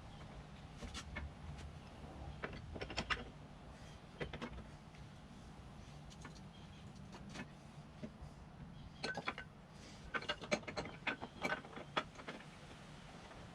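Scattered light clicks, knocks and clinks of metal parts and tools being handled while refitting a motorcycle rear wheel, in short clusters, busiest about nine to twelve seconds in.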